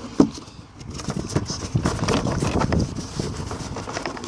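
Plastic air-box parts and the old air filter being handled and lifted out: a sharp plastic knock right at the start, then a run of irregular knocks and rustling.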